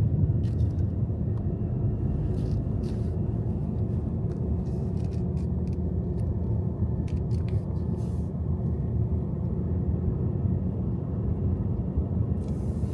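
Steady road and engine rumble of a moving car, heard from inside the cabin, with a few faint clicks.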